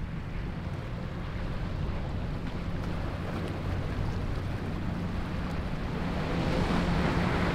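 Outboard engines of a Boston Whaler 420 running at speed, a steady low drone that grows louder near the end as the boat comes closer. The hiss of its spray and wake rises with it, and there is some wind on the microphone.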